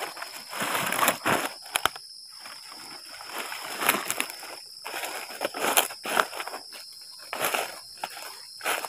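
Footsteps crunching through dry leaf litter and grass, with rustling and scraping as a piece of firewood is picked up and carried, over a steady high drone of night insects such as crickets.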